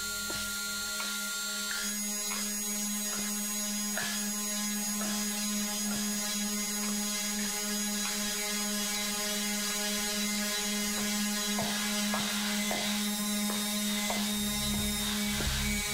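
Experimental noise music: a steady low drone under layers of fixed electronic tones, broken by irregular mechanical, ratchet-like clicks. A high tone drops out about two seconds in, and a deep rumble enters near the end.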